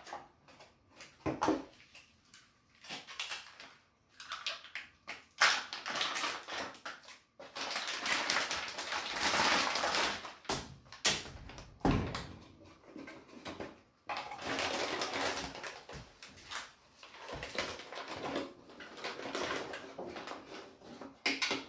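A filament spool and its cardboard box and wrapping being handled: irregular knocks and clicks, with several longer stretches of rustling packaging.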